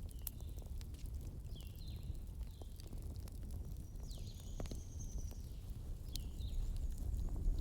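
Bonfire crackling, with a steady low rumble and scattered sharp pops. Several short, falling bird calls sound over it.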